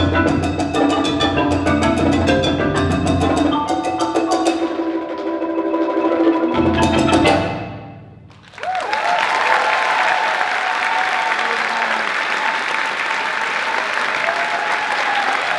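Yamaha marimba and drums playing the final bars: fast mallet strokes over drum hits, ending in a ringing chord that cuts off about eight seconds in. After a brief hush the audience applauds steadily.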